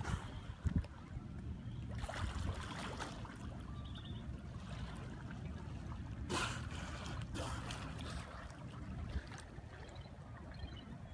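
Wind rumbling on the phone microphone over moving harbour water, with a few short puffs of dolphins blowing as they surface: one at the start, more around two to three seconds in, and the loudest about six seconds in.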